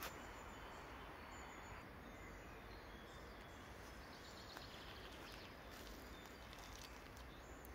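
Near silence: a faint, steady ambient hiss, with a few faint high chirps around the middle.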